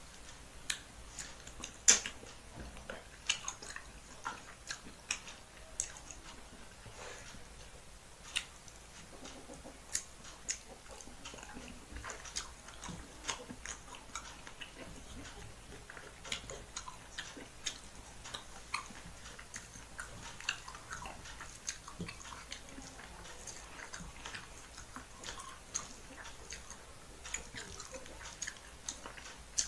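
Eating by hand from a metal plate: fingers mixing rice on the plate, and chewing, with scattered sharp clicks, the loudest about two seconds in.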